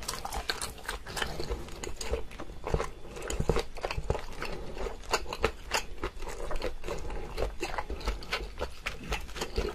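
Close-miked eating: a person biting and chewing food, a steady run of irregular mouth clicks and smacks.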